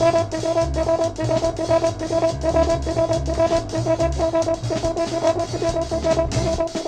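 Music with a drum kit keeping a quick, steady beat under a short high note repeated over and over.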